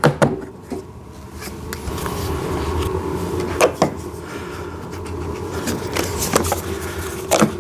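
Scattered sharp plastic clicks and knocks as the side mirrors of a kids' electric ride-on car are pushed into their mounting holes, over a steady background hum.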